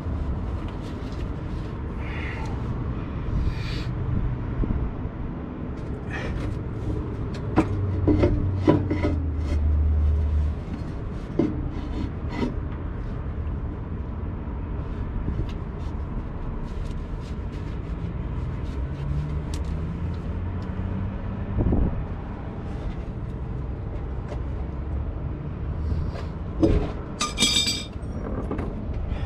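Rubber air spring bag rubbing, scraping and knocking against the steel axle mount as it is worked by hand into place, with scattered clicks and a few louder knocks over a steady low rumble. A sharper clatter comes near the end.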